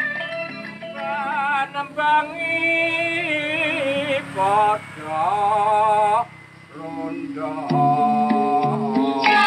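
A man singing a Javanese macapat tembang in phrases of wavering, ornamented held notes, with a short break about six and a half seconds in.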